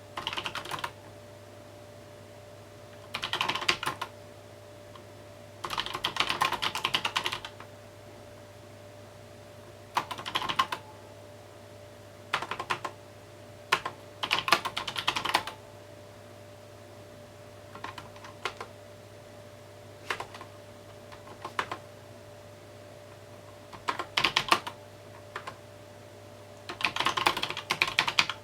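Typing on a mechanical keyboard in irregular bursts of rapid key clicks, some brief and some lasting a second or more, with pauses between them. A faint steady hum runs underneath.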